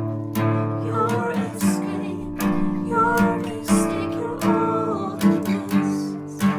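Live band music: acoustic guitar strumming chords in a steady rhythm, with a higher wavering melodic line over it, picked up together on a single microphone.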